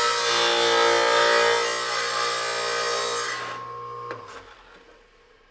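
Small wet tile saw's diamond blade grinding through a granite tile, a dense hissing whine over the motor's hum. The grinding stops about three and a half seconds in as the cut finishes, the motor hum stops shortly after, and the sound fades away.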